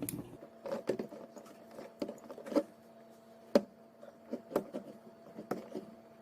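Scattered clicks and knocks as an RJ45 crimping tool is worked to crimp a plug onto an Ethernet cable, over a faint steady hum.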